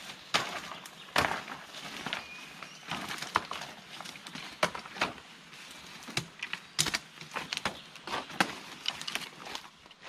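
Footsteps through forest undergrowth: irregular crunching of leaf litter and snapping of small twigs underfoot.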